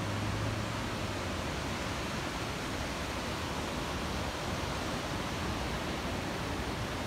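Ocean surf breaking along a sandy, rocky beach: a steady, even wash of noise with no separate crashes standing out.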